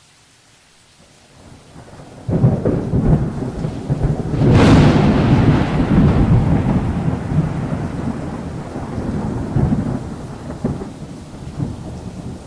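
Thunder sound effect: a low rumble builds and breaks in loudly about two seconds in, with a sharp crack at about four and a half seconds, then rolls on and slowly fades.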